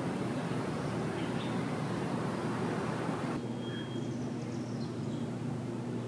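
A steady low mechanical hum and rumble, with a few faint, short, high bird chirps above it. A little past halfway the high hiss drops away abruptly.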